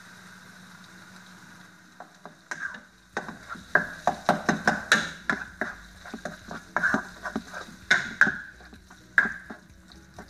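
A spoon scraping and knocking against a cooking pot as tomato paste is stirred into a frying meat and tomato masala: a faint steady sizzle at first, then from about two and a half seconds in a quick, uneven run of metallic clicks and scrapes.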